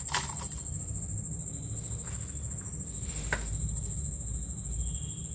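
Steady high-pitched insect trill over a low background hum, with a faint click a little after three seconds in.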